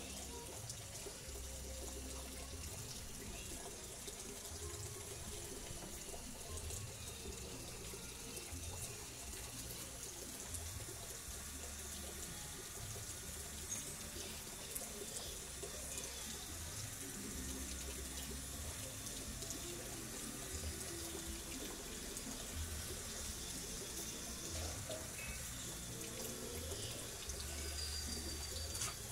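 Water running steadily from a garden hose, a constant hiss.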